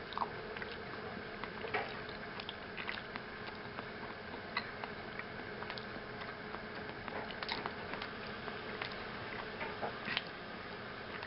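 A man chewing a mouthful of burrito: faint scattered soft clicks and mouth noises over a steady low room hum.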